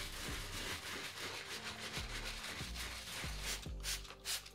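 An all-purpose cleaning brush scrubbing soap and water into the leather of a sneaker, a steady wet rubbing. Near the end it gives way to a few quick squirts from a spray bottle. Background music runs underneath.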